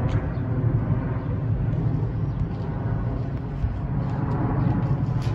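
Twin-engine jet airliner flying overhead at altitude: a steady low jet rumble.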